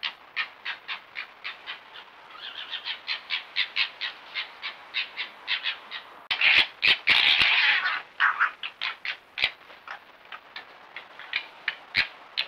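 Red foxes calling: a steady run of short, high yelps, about three or four a second, broken about six seconds in by a loud, harsh chattering squabble lasting about a second and a half as two foxes chase each other. Sharp clicks sound twice in the second half.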